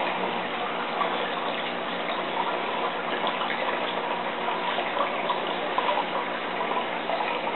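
Water running and splashing steadily in a fish tank, with small ticks scattered through it and a faint steady hum underneath.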